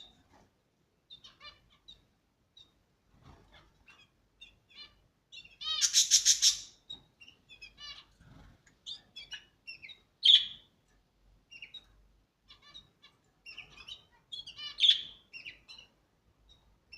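Caged exotic birds chirping with many short, high calls, one bird giving a loud rapid chattering call about six seconds in, and sharp louder calls twice later on.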